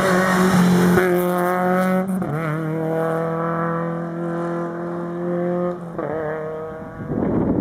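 Toyota Yaris rally car's engine at high revs on a stage, loudest at the start. About two seconds in the pitch drops and wavers at a gear change, then a long steady high-revving note follows as the car pulls away. There is another brief dip near six seconds.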